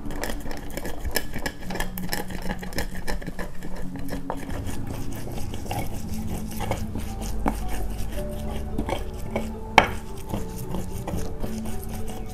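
Stone pestle pounding and grinding coriander seeds and garlic in a volcanic-stone mortar: repeated stone-on-stone knocks and gritty scraping, with one sharper knock about ten seconds in.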